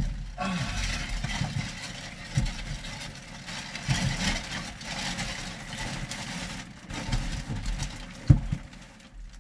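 Black plastic garbage bag rustling and crinkling as it is handled, with dull knocks and thumps throughout and one sharper thump near the end.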